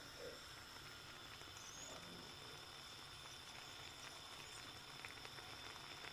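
Very faint simmering of a pasta sauce in a frying pan on a gas burner, with a few soft pops near the end.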